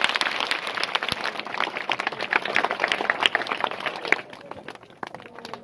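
A crowd of schoolchildren applauding, many hands clapping together; the clapping dies away about four seconds in.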